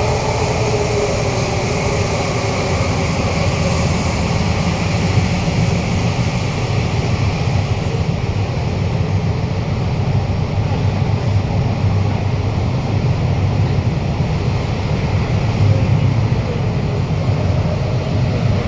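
Steady running noise heard inside a Kawasaki–CRRC Qingdao Sifang CT251 metro car moving along the line: a heavy low rumble of wheels on rail with a hiss over it.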